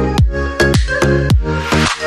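Electronic dance background music with a steady kick-drum beat of about four strokes a second, with a hissing swell near the end.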